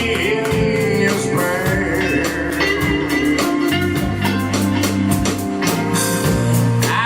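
Live band music with electric guitar over bass and drums, a steady beat throughout.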